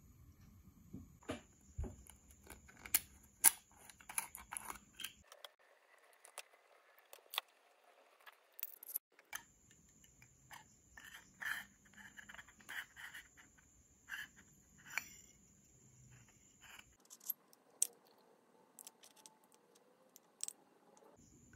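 Scattered small clicks, taps and scrapes of hands handling a plastic syringe and a plastic ink bottle, with the needle pushed through the bottle's foil seal, heard in several short cut-together stretches.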